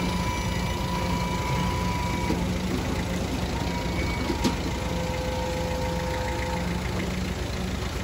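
Truck engine idling, a steady low rumble, with a single sharp click about four and a half seconds in.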